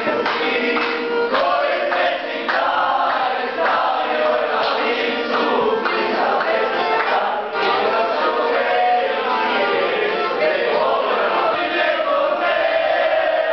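A group of men singing together in chorus.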